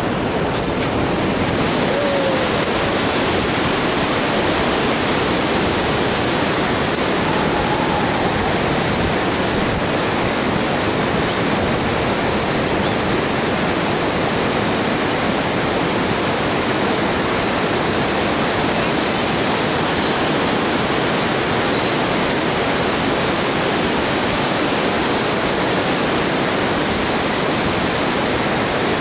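Fast whitewater river, the Bhote Koshi, rushing steadily with no let-up.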